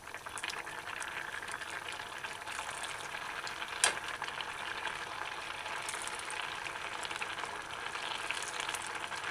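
A pot of brown-stew gravy with chicken gizzards bubbling and sputtering on medium-high heat as it thickens, with a spoon stirring it. One sharp click about four seconds in.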